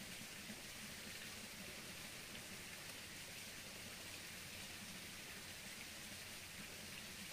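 Faint, steady hiss of outdoor background noise, even throughout, with no distinct events.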